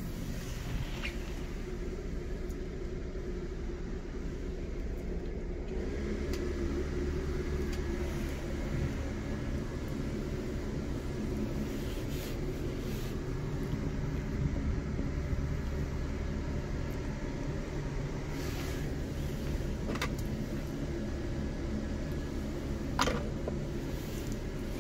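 Mercedes-Benz Sprinter 519 CDI's V6 diesel engine idling steadily, heard from inside the cab. A couple of light clicks come near the end.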